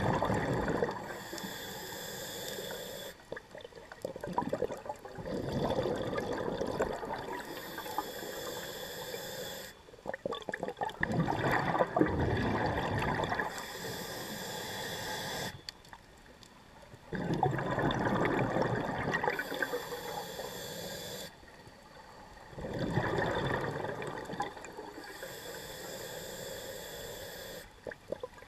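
Diver breathing through a scuba regulator, heard underwater: a hissing inhale through the demand valve alternating with a louder rush of bubbling exhaust, about five breaths, one every five to six seconds.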